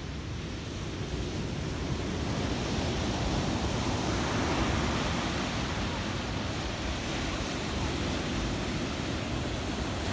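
Ocean surf breaking and washing up a sandy beach: a steady rushing wash that swells about four seconds in.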